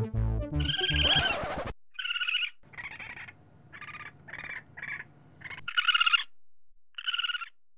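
Background music ends under a trilling animal call about two seconds in. A string of short, warbling animal calls follows, the loudest about six seconds in and one more near the end.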